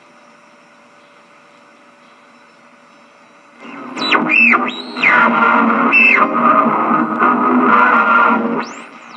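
Five-tube 1930s AM tube radio being tuned across the dial: low static hiss with a faint steady whistle, then about three and a half seconds in a station comes in loud with music, swept by rising and falling tuning whistles, and it drops away again near the end as the dial moves on.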